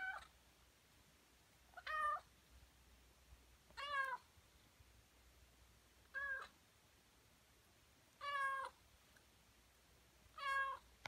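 A young tabby kitten meowing, six short meows about two seconds apart.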